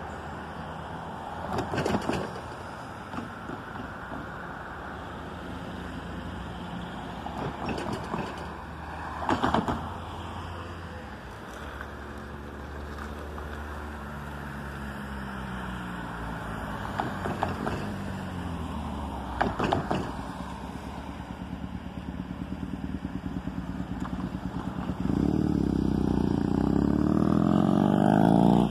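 A motorcycle engine approaching and riding across the grade crossing, growing loud over the last few seconds. Before it, a steady outdoor hum with a few brief bursts of noise and, around the middle, an engine note falling in pitch.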